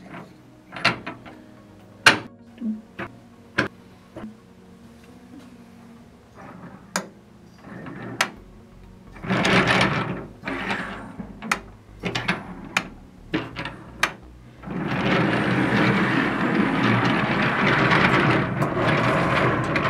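Wooden toy train cars clicking and knocking on a wooden tabletop as they are handled and joined by their magnet couplings. From about fifteen seconds in, a string of coupled cars rolls across the table on its wooden wheels with a steady rumble.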